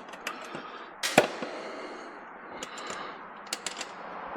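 Sharp clicks and knocks of hand tools and bike parts being handled while the rear axle bolt of a mini bike is worked out. One louder knock comes about a second in, and a run of lighter ticks follows near the end.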